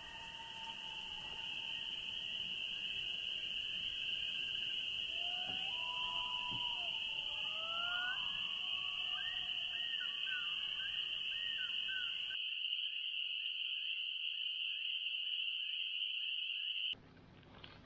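Wetland night soundscape: a steady high-pitched chorus of calling animals, with birds giving rising and falling whistled calls through the middle. It all cuts off abruptly just before the end.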